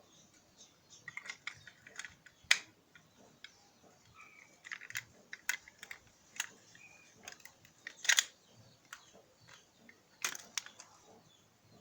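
Irregular clicks and taps of small hard parts being handled while an egg beater is taken apart or put back together, the sharpest about two and a half and eight seconds in. A few short high chirps sound between them.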